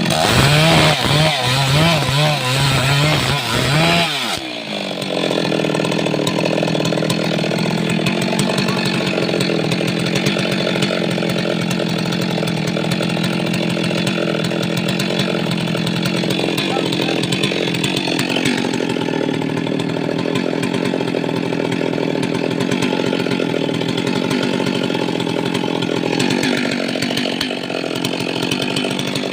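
Stihl MS382 two-stroke chainsaw running at full throttle under load, cutting into wood. Its pitch wavers for the first few seconds, then drops sharply about four seconds in and holds steady for the rest of the cut.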